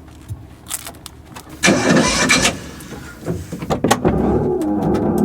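Fiat 500 being cranked on its starter with a loud burst of cranking, then a few clicks before the engine catches about four seconds in and keeps running.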